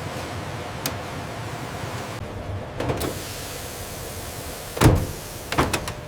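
Steady background hiss broken by several short knocks and clicks, the loudest about five seconds in, with a quick pair of clicks just after it.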